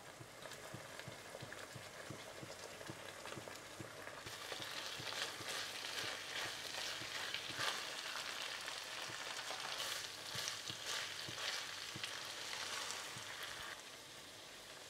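Minced meat, tomato paste and cut green beans sizzling in a non-stick pan as the beans are tipped in and stirred with a metal spatula, with scattered light clicks. The sizzle grows louder about four seconds in and drops back shortly before the end.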